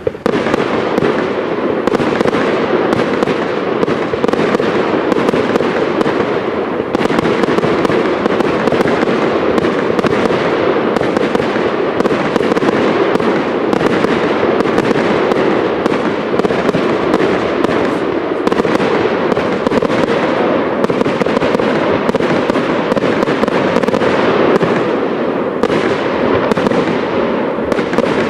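Aerial fireworks display: a dense, continuous volley of bangs and crackling bursts that starts abruptly.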